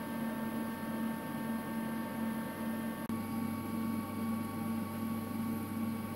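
Wire EDM machine running with a steady hum, a low tone pulsing on and off over several fixed higher tones; the low hum shifts slightly about halfway through.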